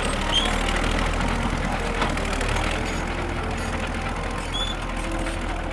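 Caterpillar crawler tractor running steadily, a dense even engine and machinery sound with a constant low drone.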